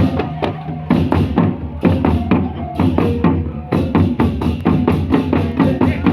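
Music with a steady, driving drum beat: regular bass-drum and snare-like strikes, with cymbal hits and sustained pitched tones underneath.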